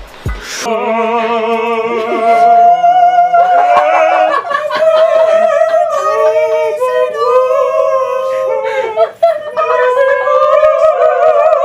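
Singing in long held notes with a strong, wavering vibrato, loud, with a brief break about nine seconds in.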